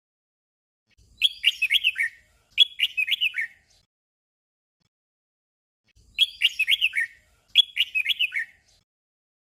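Red-whiskered bulbul singing its short whistled phrase twice in quick succession, a doubled song. The doubled phrase comes about a second in and again about six seconds in.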